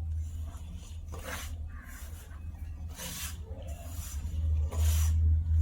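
Hands kneading soft wheat-flour dough in a bowl: three squishing, rubbing strokes, about two seconds apart, the last one loudest. A steady low hum runs underneath.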